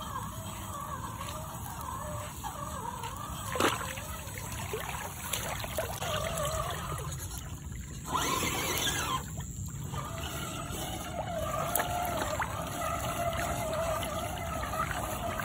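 Scale RC crawler wading through a muddy stream: water splashing and sloshing around it, loudest for about a second and a half some eight seconds in, over a wavering whine.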